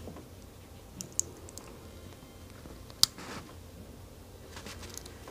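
Light metallic clicks from a Rolex Daytona's steel bracelet and clasp being handled and flexed: a couple of clicks about a second in, a sharper one about three seconds in, and a few more near the end.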